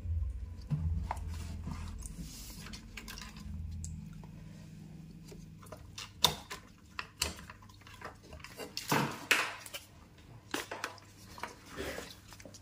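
Handling noise: a series of light clicks and short rustles as a circuit board is picked up and moved over a notebook in gloved hands, with a faint low hum that fades out about four seconds in.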